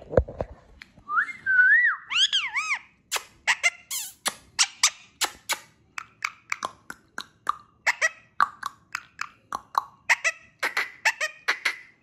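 Indian ringneck parakeet whistling a short wavy rising-and-falling tune, then giving a long quick run of short sharp chirps, about three a second. A brief knock comes right at the start.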